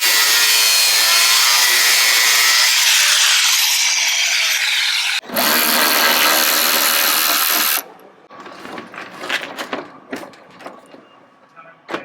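Handheld power tool working on the door hinge bolts: its motor runs at full speed with a loud high whine for about five seconds, cuts out sharply, then runs again for about two and a half seconds. Scattered metal clicks and knocks follow.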